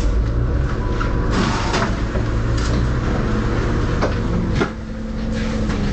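Volvo B7RLE bus's seven-litre diesel engine idling at a stop, heard from the front seat, with clatters and knocks of the doors working; after a sharp knock about four and a half seconds in, the sound drops briefly and a steady whine sets in.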